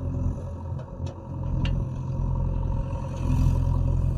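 JCB 3DX backhoe loader's diesel engine running steadily, with three light clicks or clanks in the first two seconds and a slight swell in level about three seconds in.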